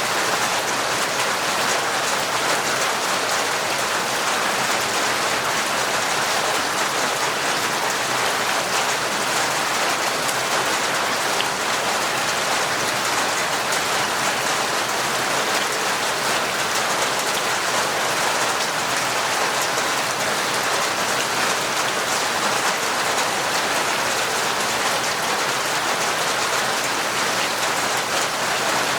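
Heavy, torrential rain falling steadily, a dense and even patter of drops with no let-up.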